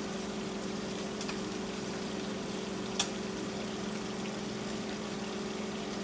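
Hybrid striped bass fillets sizzling in hot oil in a frying pan, over a steady hum from the kitchen exhaust fan. One sharp click comes about halfway through.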